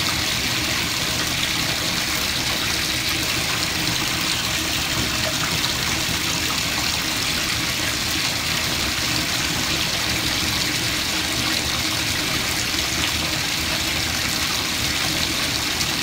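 Bathtub tap running, a steady stream of water pouring into a foam-covered bath as the tub fills.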